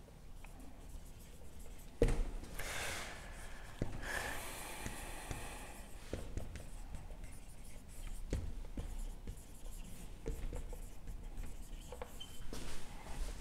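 Dry-erase marker writing on a whiteboard: irregular scratchy strokes with small taps as the tip meets the board, the loudest stroke about two seconds in.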